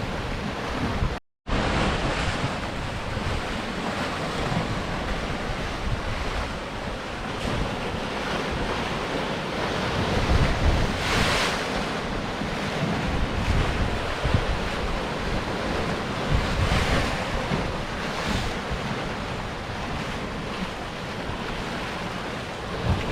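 Sea surf breaking and washing over rocks, swelling louder every few seconds, with wind buffeting the microphone. The sound drops out briefly about a second in.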